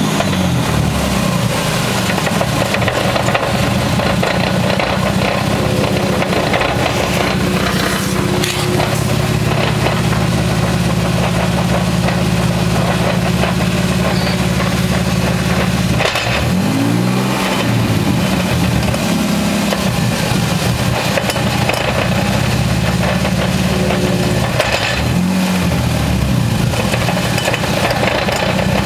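1994 Toyota Supra MKIV twin-turbo on the move: a steady drone from the engine and running gear, with the pitch dipping and coming back up twice, a little past halfway and near the end. The drone comes from a failing rear wheel bearing, though it sounds like a driveline noise.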